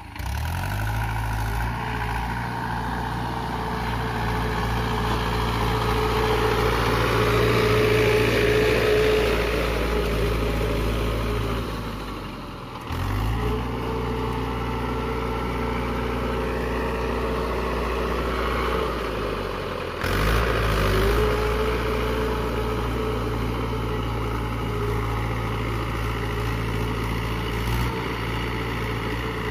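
Mahindra tractor on steel cage wheels, its diesel engine running steadily under way, a little louder for a few seconds early on. The sound jumps abruptly twice, about 13 and 20 seconds in.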